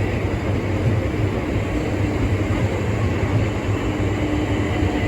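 Southeastern Class 376 electric multiple unit arriving into the platform at low speed, a steady low hum of its traction equipment over wheel-on-rail noise.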